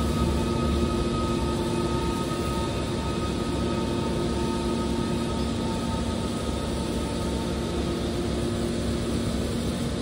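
Hydraulic scrap-metal baler's power unit running steadily: an even motor-and-pump hum carrying several constant tones, with no pressing strokes or impacts.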